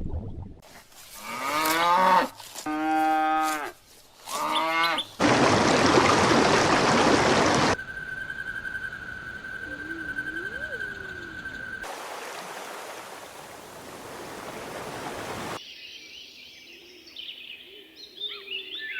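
Cattle mooing: three drawn-out calls in the first few seconds, each bending in pitch. Then a loud steady hiss, a quieter stretch with a faint high whine and faint wavering calls, another burst of hiss, and faint short calls near the end.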